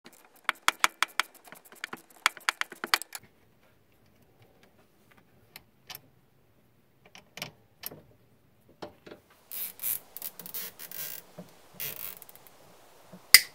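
Metal clicking and rattling as the shift cable end is unbolted from its bracket on a Polaris RZR 800 transmission: a fast run of clicks for about three seconds, then scattered clicks. Short rustling scrapes follow as the cable and its rubber boot are worked free, with one sharp click near the end.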